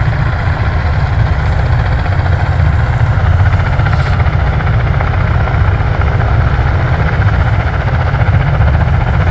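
Marine Corps V-22 Osprey tiltrotors running on the ground at idle, their turboshaft engines and proprotors making a steady, loud, pulsing low rumble while they warm up before takeoff.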